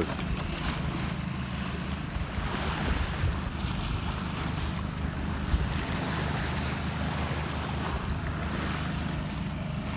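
Sailboat's outboard motor running with a steady low hum while motor sailing, under the rush of water past the hull and wind on the microphone.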